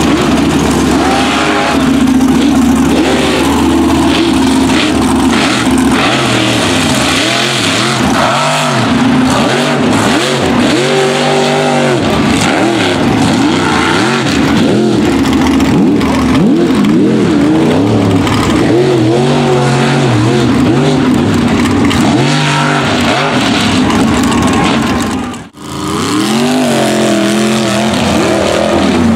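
Mud racing trucks' engines revving hard at full throttle, the pitch rising and falling as they power through the mud pit. The sound drops out for an instant near the end, then picks up again.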